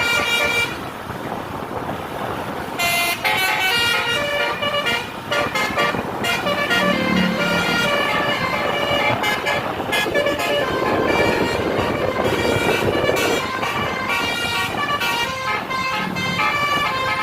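Tour bus's multi-tone telolet horn playing a quick run of short melodic notes, over and over.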